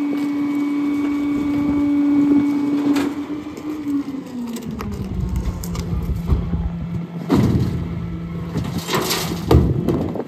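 Rear-loader garbage truck running at the curb, its steady engine hum dropping to a lower pitch about four seconds in. Metal knocks and clatter of burnt debris being dumped into a steel tipping bin break over it, loudest in a burst near the end.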